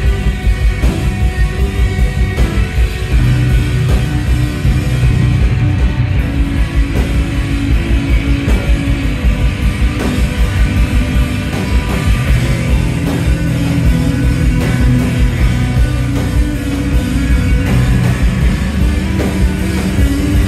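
Instrumental post-rock band playing live and loud: layered electric guitars over a fast, steady drum and bass pulse.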